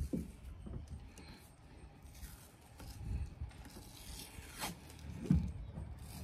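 Cloth grip tape being pulled off its roll and wound around a chainsaw's front handle bar, in short rasping pulls, with soft knocks from handling the bar. The longest, loudest pull of tape comes about two-thirds through, with a knock just after.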